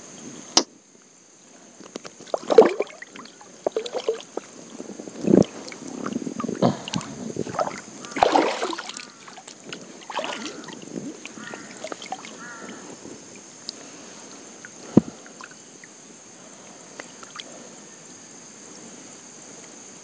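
Water splashing and sloshing with scattered knocks and clunks, busiest in the first half, as a fishing net is worked along in the river. A sharp knock near the start and another about three-quarters through stand out.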